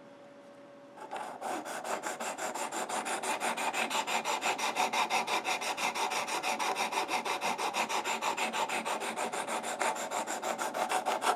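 A 400-grit sharpening stone on a clamped Work Sharp sharpener is being stroked quickly and evenly back and forth along the blade of a Leatherman Free T4, giving a steady rhythmic scraping that starts about a second in. The strokes are reprofiling the blade's factory edge to a 17-degree angle.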